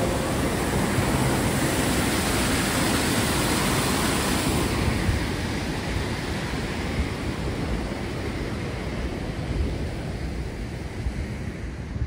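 A car's tyre noise on the road as it passes and fades away, the hiss dropping off about halfway through, with wind buffeting the microphone.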